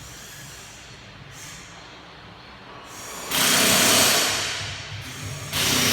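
A power tool run in two bursts of a second or two each, the first about three seconds in and the second near the end, over a low steady hum.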